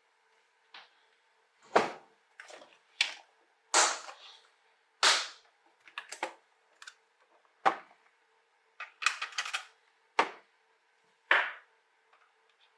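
Small hard objects being handled, about a dozen sharp irregular clicks and knocks, some ringing briefly, over a faint steady hum.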